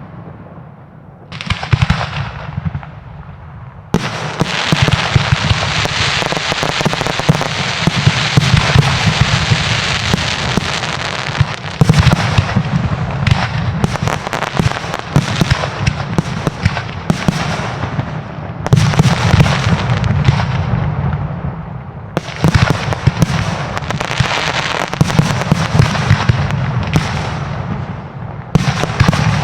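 Fireworks display: a few separate bursts, then from about four seconds in a near-continuous barrage of rapid bangs and crackle with only brief dips.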